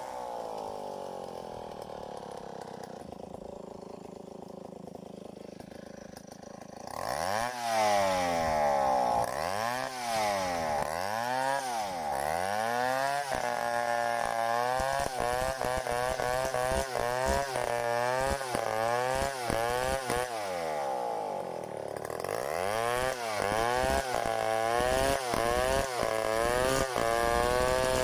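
Stihl 070 two-stroke chainsaw settling from a high rev to idle, idling for a few seconds, then revved repeatedly in rising and falling swings; it drops back briefly about three quarters of the way through and revs up again, running fast near the end.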